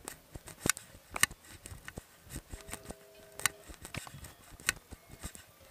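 Footsteps of hikers on a rocky mountain trail: irregular crunches and sharp clicks of boots on stone and gravel, a few a second.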